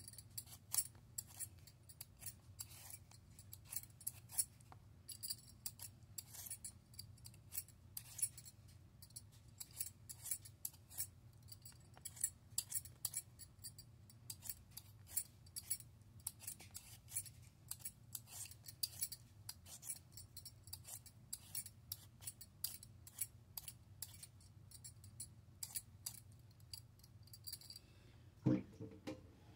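Metal swivel vegetable peeler scraping the skin off a raw potato in quick, repeated short strokes, a few each second. There is a brief louder knock near the end.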